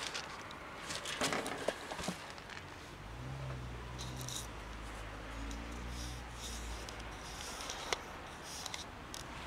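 Rustling and crackling about a second in, then a low steady hum for about four seconds, with faint scattered ticks.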